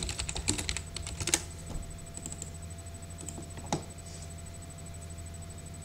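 Computer keyboard typing: a quick run of keystrokes for about the first second and a half, then a few separate clicks, one louder near the middle.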